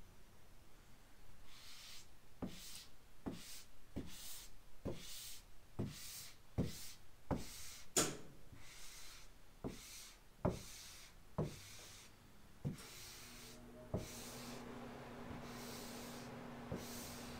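Hand squeegee stroking over a wet vinyl decal on a car hood, squeezing the soapy application solution out from under it: a run of short swishing passes, about two a second at first, then slower and further apart until they stop. A faint steady hum comes in near the end.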